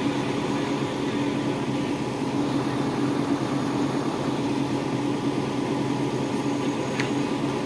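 Excavator's diesel engine running steadily, heard from inside the cab: an even hum with a low held pitch, the machine holding a heavy boulder in its bucket.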